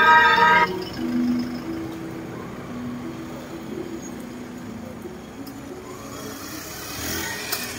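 Cars and a Toyota pickup truck driving slowly past at low engine speed. A loud musical chord cuts off about half a second in.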